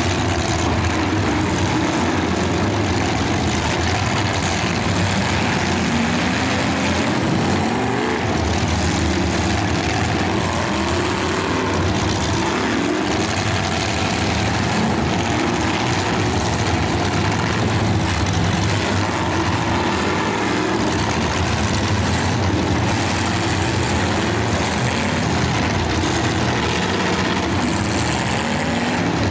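Several full-size demolition derby cars' engines running and revving together, a steady loud din with pitches rising and falling as the drivers work the throttles.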